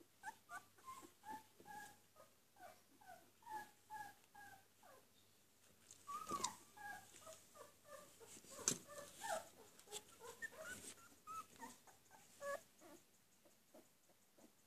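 Two-week-old puppies whimpering and squeaking, a quick run of short, high-pitched cries a few each second. There are a couple of louder rustling knocks about six and nine seconds in.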